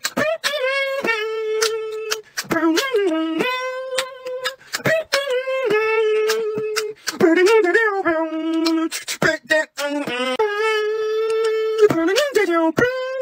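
Beatboxing: a voice hums a tune in long held notes that slide from one pitch to the next, with sharp mouth clicks and pops cutting in between them.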